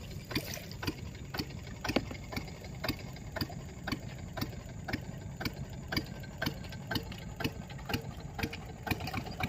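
Small boat motor idling noisily: a steady low running with a sharp regular tick about twice a second.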